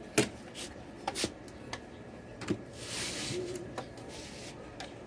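Handling noise as the white plastic modem and the recording phone are moved about on a concrete surface: a few sharp knocks and clicks, and a brief rubbing scrape about three seconds in.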